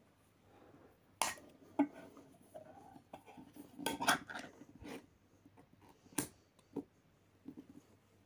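Ring-pull lid of a steel food tin being handled and levered: a series of sharp metallic clicks and clinks, the loudest cluster about four seconds in.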